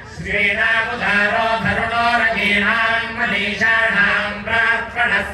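Sanskrit mantras chanted in a steady, melodic recitation, with sustained voiced phrases and brief pauses.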